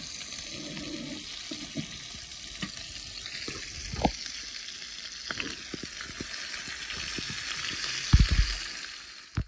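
Bacon sizzling steadily in a skillet on a camp stove, with scattered pops and clicks. A sharp knock comes about four seconds in, and a louder cluster of knocks a little after eight seconds.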